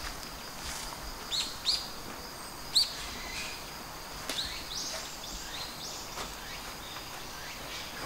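Small birds calling in short, sharp chirps: a pair a little over a second in, a loud single chirp near the three-second mark, then a quick run of falling chirps. A faint, steady high insect drone runs underneath.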